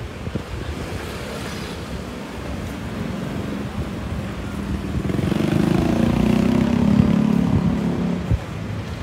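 A motor vehicle's engine passing close by, growing louder from about five seconds in and falling away shortly before the end, over steady street noise.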